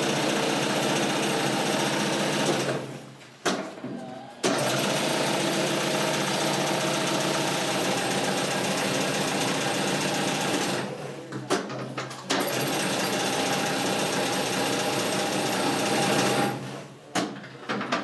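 Motor-driven coil-winding machine spinning a row of coil formers at speed, winding enamelled copper wire for washing-machine motor coils: a steady, dense mechanical whir. It stops about three seconds in and restarts a second and a half later, dips briefly around eleven seconds, and winds down near the end.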